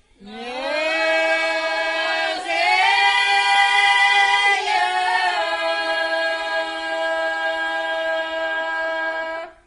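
Women singing an Abruzzese folk song unaccompanied, in one long held phrase: the voices slide up into the note, step up about two seconds in, come back down near the middle, and hold until they stop suddenly near the end.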